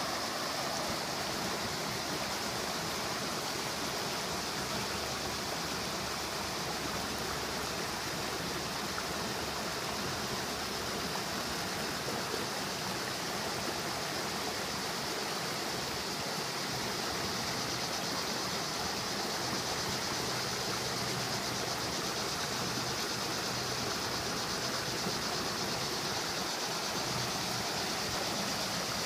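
Creek water rushing over a low ledge of rocks in a shallow riffle: a steady, even hiss of flowing water.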